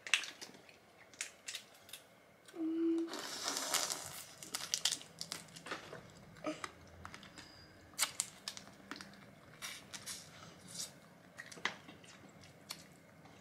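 Boiled jumbo prawn shells being cracked and peeled by hand: irregular crackling clicks and crinkling, with a longer tearing rustle about three seconds in.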